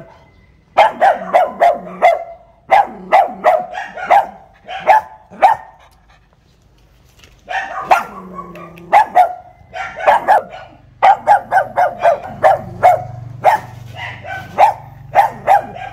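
Pug barking in quick runs of short, sharp barks, about four a second, with a pause of a couple of seconds near the middle.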